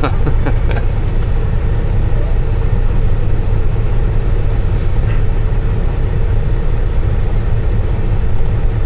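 Kenworth W900 semi truck's diesel engine idling with a steady low rumble.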